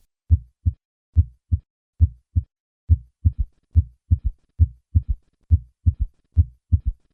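Heart sounds: about three normal lub-dub beats (first and second heart sounds), then from about three seconds in a third heart sound follows each second sound, giving a triple, galloping rhythm at roughly 70 beats a minute. In severe aortic regurgitation this third heart sound introduces the Austin Flint murmur.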